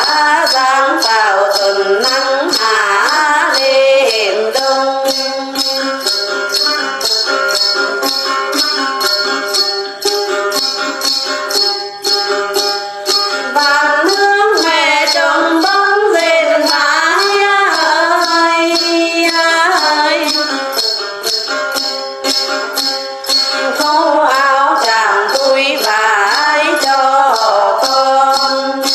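Tày-Nùng hát then singing: a woman's voice in long, ornamented phrases with a đàn tính gourd lute. A shaken bunch of jingles keeps a steady beat of about three strokes a second. Sung phrases come near the start, in the middle and near the end, with instrumental passages between.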